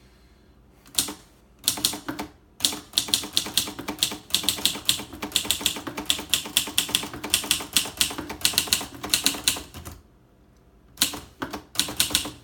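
Typing on a 1953 Gossen Tippa B portable manual typewriter: a fast run of key strikes, a pause about ten seconds in, then a few more strikes.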